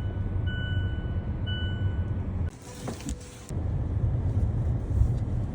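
Low steady vehicle rumble, broken off briefly near the middle, with a single-pitched electronic beep repeating about once a second over the first two seconds.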